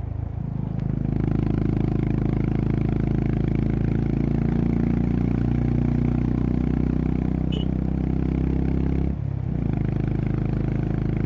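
Honda CB350RS's single-cylinder engine and exhaust running steadily under way, with a brief drop about nine seconds in before it picks up again.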